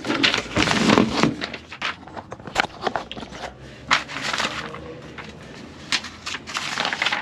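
Canvas tent fabric and tent poles being handled: rustling and scraping, with scattered small knocks and clicks.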